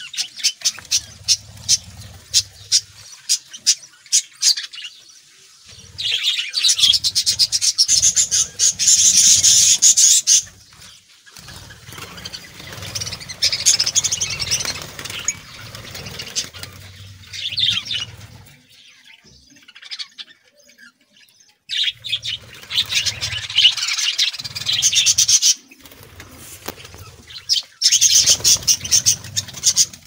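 Budgerigars chattering in loud bursts of rapid, high chirping, with short quieter pauses between bursts.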